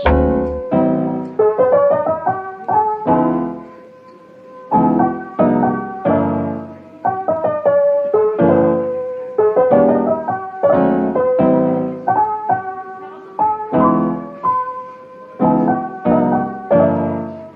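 Background piano music: notes and chords struck every second or so, each ringing on and fading.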